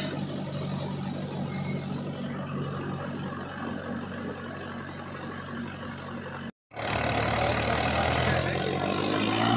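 Mahindra 585 DI XP Plus tractor's four-cylinder diesel engine running steadily while its hydraulic tipper trolley is raised to dump the load. After a short break in the sound about two-thirds through, the engine runs louder and harsher as the tractor drives across the field, rising in pitch near the end.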